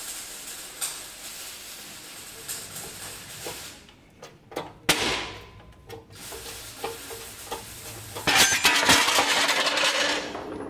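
Workshop press forcing a corrosion-seized front wheel bearing out of an Opel Antara's aluminium steering knuckle. A rushing hiss runs through the first few seconds, a single sharp crack comes about halfway, then scattered clicks and a louder rushing hiss near the end.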